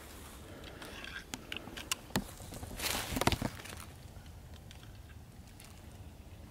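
Footsteps crunching and rustling in dry fallen oak leaves: a few scattered crackles, the loudest burst about three seconds in, then the steps stop and only faint low background remains.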